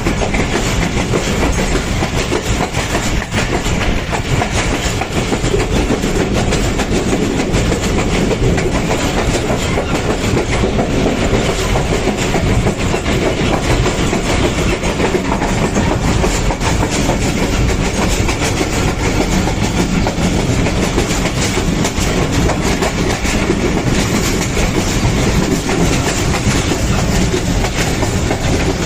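Pakistan Railways train running on the track: loud, continuous clickety-clack of steel wheels over the rails, with the rumble of the carriages.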